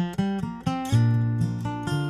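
Acoustic bluegrass band playing the instrumental opening of a song: a melody of picked string notes over strummed acoustic guitar.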